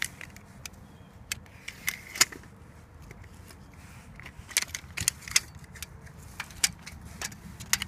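Light, sharp clicks and rattles of a steel tape measure being pulled out and handled, coming irregularly with the loudest clusters about two seconds in and around the middle.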